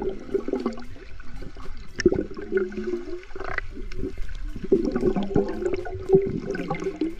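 Spring water gurgling and sloshing close to the microphone, with muffled wavering sounds and frequent small splashes and knocks.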